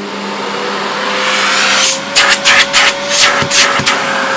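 Sebo C2 Total canister vacuum cleaner's 1500-watt motor running, its whine rising slightly and then holding steady. From about two seconds in come about seven short, loud rushes of air through the suction as the suction is tested.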